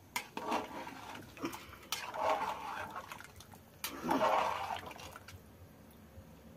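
Water and rice sloshing in a cooking pot of biryani as it is stirred, in three swishes about two seconds apart, with a few sharp clinks.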